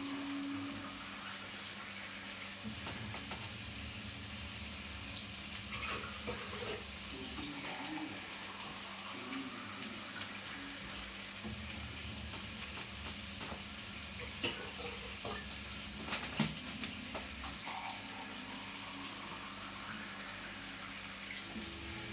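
Soup ingredients sizzling steadily in a large pot on the stove, a fine crackling hiss, with water running from a kitchen tap at times and a couple of clinks in the second half.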